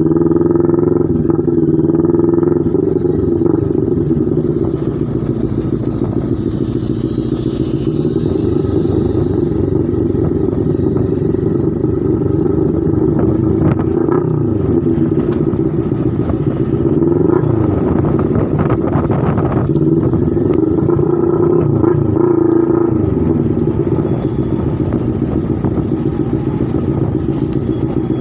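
Motorcycle engine running at riding speed, heard from on the bike. Its note rises and falls several times with the throttle.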